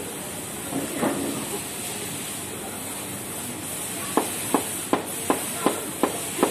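Steady hiss from the gas-fired wok stove and the noodles frying in the wok. From about four seconds in, a cleaver chops on a plastic cutting board about three times a second, seven sharp strokes.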